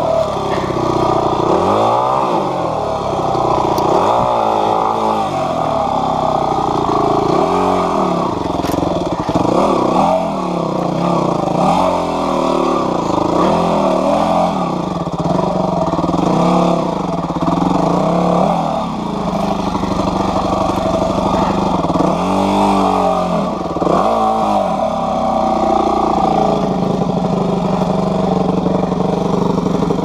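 Yamaha WR250F's single-cylinder four-stroke engine revving up and down over and over as the throttle is worked in short bursts, then holding steadier late on.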